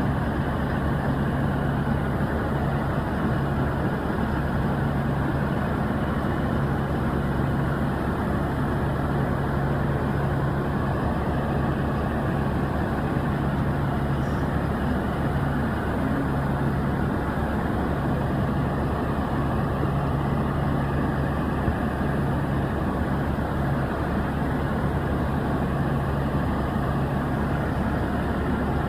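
Heavy diesel farm machinery, a tractor and a combine, running steadily at a constant speed: a continuous low engine drone with no revving.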